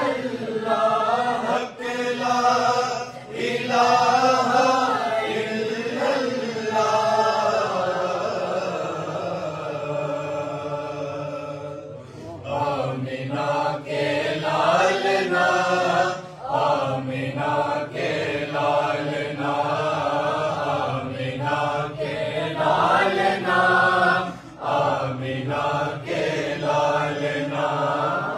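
A group of men and boys chanting a durood together in unison, unaccompanied. About a quarter of the way in they hold one long note that slowly fades for several seconds, then the sung phrases resume.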